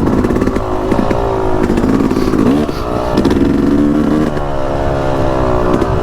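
Yamaha YZ250X single-cylinder two-stroke dirt bike engine running under a rider, its pitch rising and falling as the throttle is worked, with short dips in revs a couple of times.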